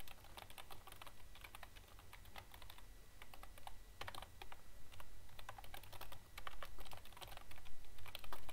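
Typing on a computer keyboard: quick, irregular keystroke clicks.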